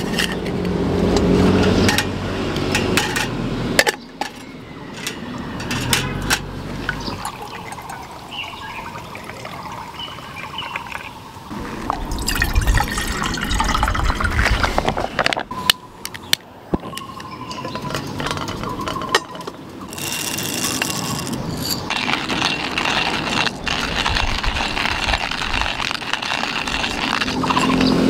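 Camping stove and cookware being handled: clinks and knocks of metal, a red fuel bottle being fitted to the stove, and noisy pouring or hissing; from about two-thirds of the way in, a steady hiss as the stove burns under a kettle.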